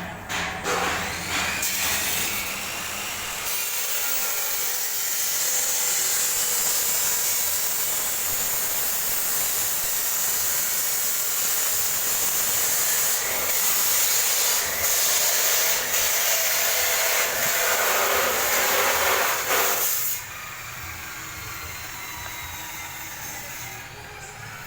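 Push-type line-marking machine at work: a steady scraping hiss that begins after a few knocks and cuts off suddenly about four seconds before the end.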